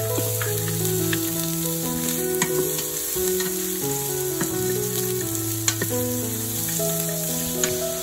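Diced red onion sizzling and frying in a hot stainless steel pot while a wooden spoon stirs it, with a few sharp clicks of the spoon against the pot. Background music with slow, held notes plays over it.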